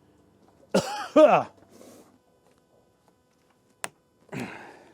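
Two short wordless vocal exclamations, each rising and falling in pitch, about a second in, a reaction of disgust at the musty smell. Then comes a single sharp click and a brief rustle near the end.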